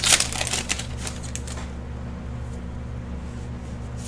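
Foil booster-pack wrapper crinkling and tearing as it is pulled open for the first second and a half or so, then quieter handling of the trading cards over a steady low hum.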